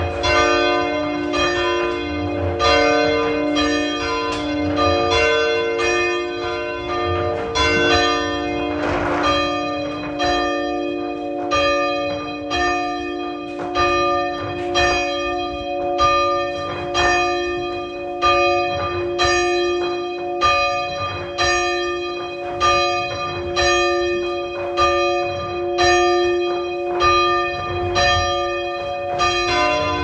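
Ukrainian Orthodox church bells ringing: several bells struck in a steady rhythm, their tones ringing on and overlapping.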